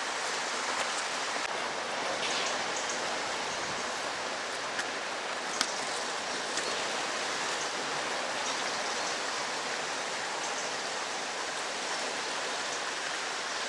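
Steady rushing noise like running water, with a few faint ticks.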